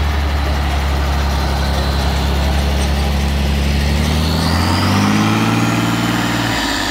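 Competition trial truck's engine running at a steady low idle, then revving up in a rising pitch from about four and a half seconds in and holding at the higher speed.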